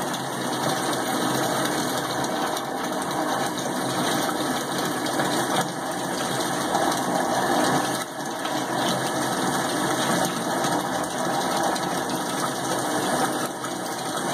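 Steady, unbroken mechanical running noise, like a motor running.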